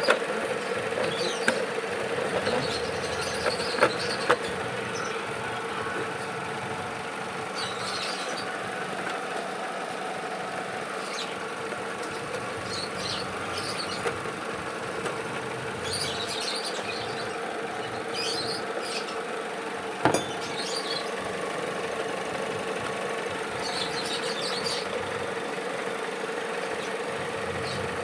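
Toyota VVT-i petrol engine idling steadily under an open hood, with faint high squeaks coming and going and a couple of sharp clicks.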